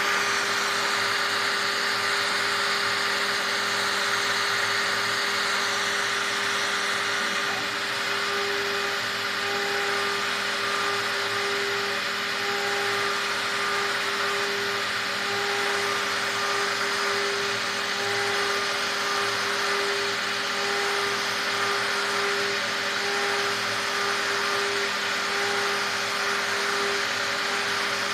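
CNC engraving and milling machine's high-speed spindle running with a fine engraving bit cutting letters into a wood board: a steady machine whine over a continuous hiss of cutting, with one tone that pulses in and out through the middle.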